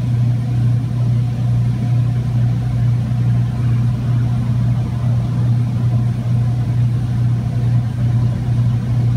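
Heavy-duty tow truck's engine idling, a steady, unchanging low hum.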